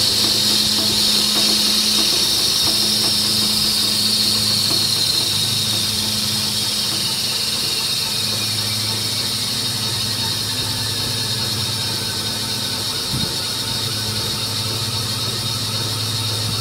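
Electric traction motor and driveshaft of a converted Chevrolet Express van coasting in torque mode at zero throttle, with no regenerative braking. A high whine falls steadily in pitch over several seconds as the shaft slows, over a steady low hum.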